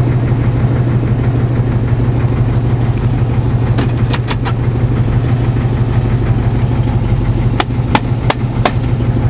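Ford truck engine idling steadily, shortly after a cold start, with a low even hum. Three sharp clicks come about four seconds in and four more near the end, from hands handling the dashboard gauge cluster.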